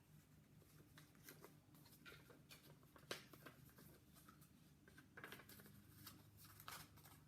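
Faint rustling and crinkling of a sheet of paper being molded around a small cup, in short scattered strokes with a few light clicks, over a low steady room hum.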